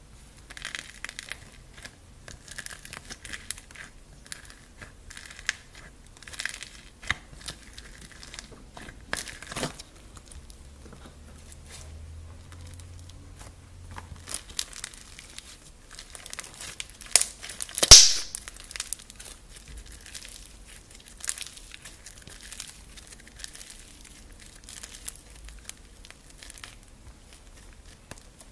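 Fingers squeezing and kneading slime packed with small foam beads, giving a run of fine crackles and crunches as the beads shift and press together. About two-thirds of the way through comes one sharp pop, much louder than the rest.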